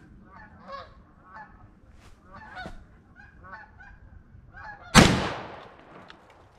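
A single gunshot about five seconds in, sharp and loud with a fading echo, over a run of repeated short honking calls.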